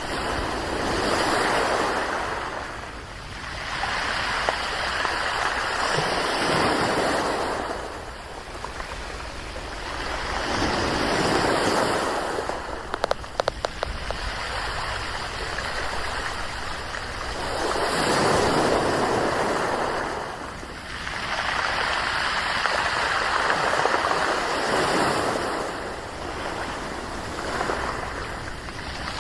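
Sea waves washing in over a beach of smooth round pebbles, the rush of water swelling and falling back every several seconds. A short run of sharp clicks comes about halfway through.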